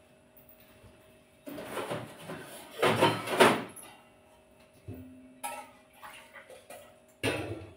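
Steel kitchen vessels clattering and scraping as a pan is taken down from the wall rack and handled, in a few short bursts, the loudest about three seconds in.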